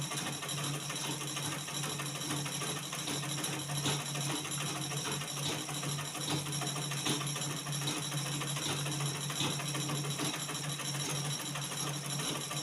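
Manual black-head Butterfly sewing machine stitching steadily with a rapid run of fine ticks over a low hum. It is set to a very short, tight stitch length, so it is sewing really slowly.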